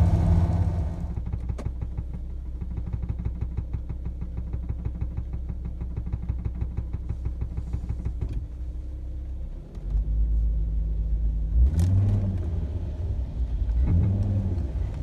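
SB-series Volvo V70 running. For several seconds there is a fast, even rattle over the low engine drone, then the engine pulls harder with its pitch rising in short surges. The rattling and buzzing is an abnormal noise that comes on under acceleration or after stopping from fairly hard braking; its cause is not yet known.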